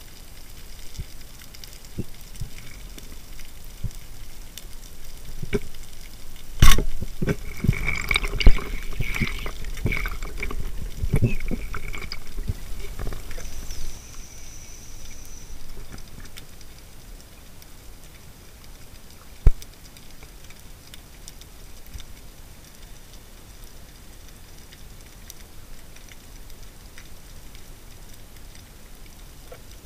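Underwater sound picked up through a diving camera: a faint steady crackle. A sharp click comes about seven seconds in, followed by several seconds of knocks and bubbling water noise, and there is one more sharp click near twenty seconds.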